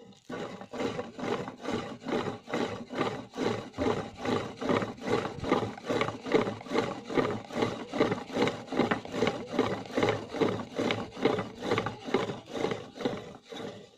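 Homemade pump drill boring into a hard stone slab. Its steel bit, made from a round chainsaw file, grinds in a steady rhythm of about three strokes a second as the crossbar is pumped up and down.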